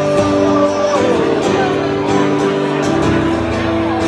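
A man singing to his own strummed acoustic guitar; he holds a long note that ends about a second in.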